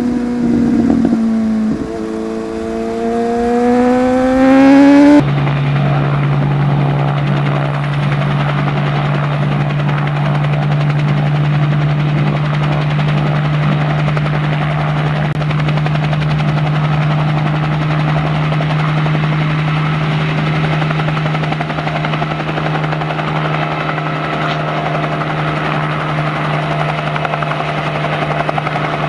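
An inline-four superbike engine revs, its pitch dipping and then climbing, and is cut off abruptly about five seconds in. After that comes the steady, unchanging whir of rotor blades from a hovering rotor aircraft.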